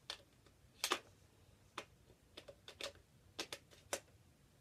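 Plastic clicks and knocks of a Nerf foam-dart blaster as a part is worked back onto it: about nine short, sharp clicks at irregular intervals, the loudest about a second in.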